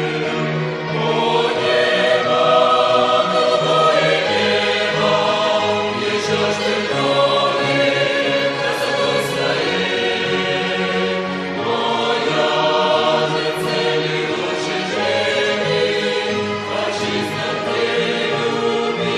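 A choir singing a hymn, in long held chords.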